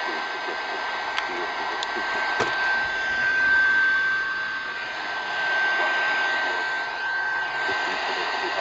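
Shortwave static from an E5 portable radio's speaker: a steady hiss with a constant high whistle and wavering fades, the station's speech lost under the noise. A few faint clicks come in the first two or three seconds.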